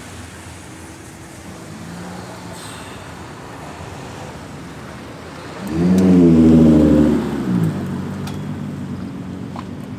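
Lowered custom cars driving slowly past with a low engine hum. About six seconds in, one car's engine revs loudly for just over a second, rising and then falling away.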